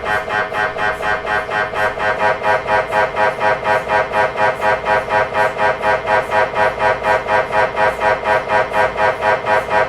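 MRI scanner's gradient coils running a scan sequence: a loud, pitched buzzing that pulses evenly at about three to four beats a second.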